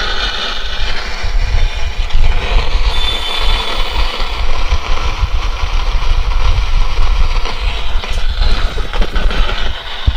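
Tower home theater speaker switched on and giving a loud, distorted crackling sound with a heavy bass rumble instead of clear audio. The technician suspects a faulty main filter capacitor or main amplifier board.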